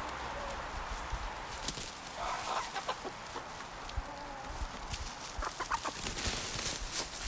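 Backyard hens clucking a few times, around two seconds in and again near six seconds, over the scrape and rustle of a long-handled tool digging through a compost pile, with scattered short clicks.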